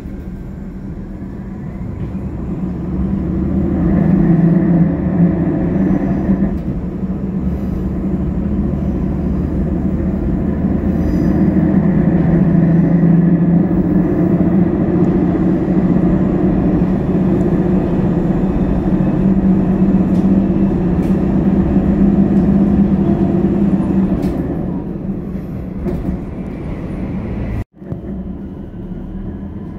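Inside an NT3000 diesel railcar running along the line: a steady engine drone mixed with wheel-on-rail noise, swelling a few seconds in and easing off again late on. Near the end the sound cuts abruptly to a quieter station scene.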